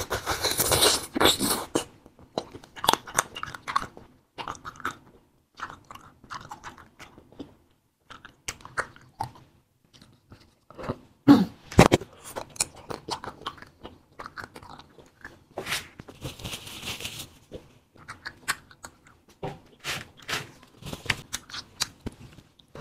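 Close-up mukbang eating sounds: biting into and chewing fruit-filled wax candy, with repeated crunchy, clicking bites. The bites are loudest and thickest in the first two seconds and again about halfway through.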